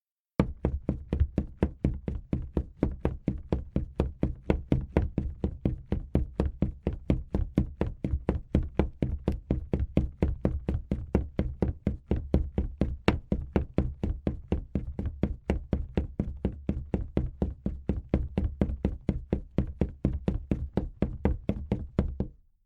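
Fast footsteps of someone running, a quick even run of heavy steps on a hard floor that starts about half a second in and stops near the end.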